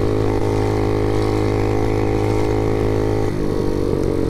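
Mega Moto mini bike's small engine running steadily under the rider at cruising throttle. A little over three seconds in, the engine note changes and shifts pitch as the throttle is moved.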